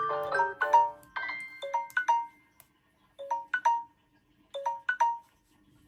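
Smartphone ringtone playing: a run of quick electronic notes, then a short chime figure of a few notes repeated three times, about a second and a half apart, stopping about five seconds in.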